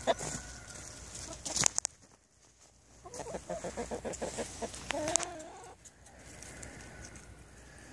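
Chickens clucking in short runs, with one longer call that rises and falls about five seconds in. A couple of sharp clicks come about a second and a half in.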